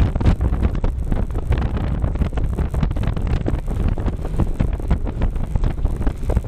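Heavy wind buffeting the microphone: a loud, low rumble with rapid irregular flutter.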